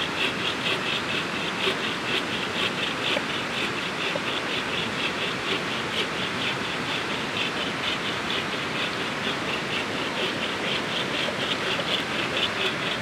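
A steady hiss, with a high, rapid pulsing trill from a calling animal that repeats several times a second throughout.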